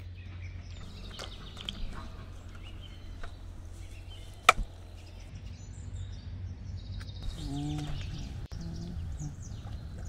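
Outdoor rural ambience with small birds chirping over a steady low hum. A sharp knock comes about halfway through, with a smaller one right after, and a short low call is heard near the end.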